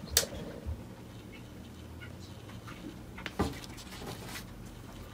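Quiet room with a faint low hum and a few light clicks, the sharpest just after the start and another about three and a half seconds in.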